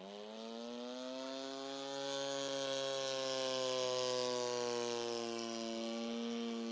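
Opposed-twin two-stroke engine and propeller of a radio-controlled Yak-54 aerobatic model in flight. Its pitch rises quickly over the first second or two, then settles into a steady buzz that is loudest about four seconds in and dips slightly in pitch near the end as the plane passes.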